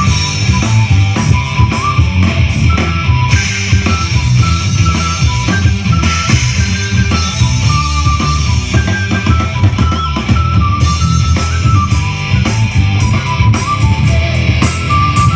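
Live heavy rock band playing loud through a PA: distorted electric guitars and a drum kit keeping a steady beat, with a high held melody line running over the top.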